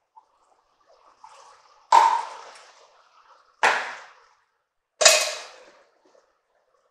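Three sharp metallic clanks, each trailing off briefly, as tin cans of tomatoes are knocked against and set down by an aluminum pot, with faint scraping of a silicone spatula in between.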